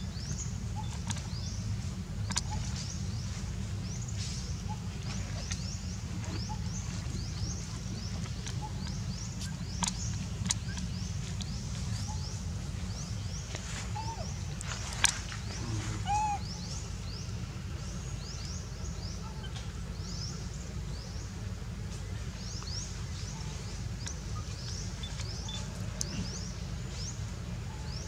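Outdoor ambience: a steady low rumble under repeated short, high chirping calls. A few sharp clicks stand out, the loudest about halfway through, and two brief squeaks come shortly after it.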